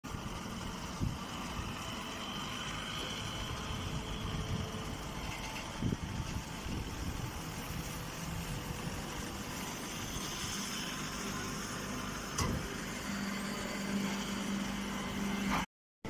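Chopped-straw compress baler running with steady machine noise and a few short knocks; a steady hum comes in near the end, and the sound cuts off abruptly just before the end.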